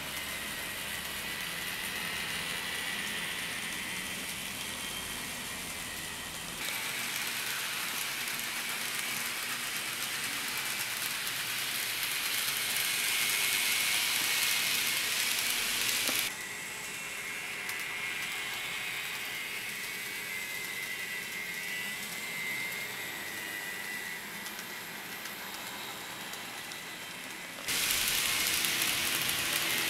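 Running noise of N-gauge model trains (TOMYTEC Tetsudō Collection cars) on curved sectional track: a steady high-pitched whir of the small motors and wheels on the rails, with a faint thin whine. The loudness jumps abruptly up or down three times.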